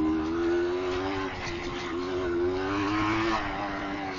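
Yamaha DT200R's 195 cc two-stroke single-cylinder engine running under way. Its note climbs slowly and falls back twice as the throttle is worked.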